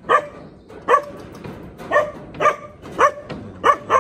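A dog barking repeatedly, about seven barks in a row.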